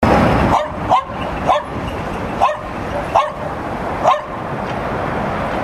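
A dog gives about six short, sharp barks, a second or less apart, over a steady background rumble.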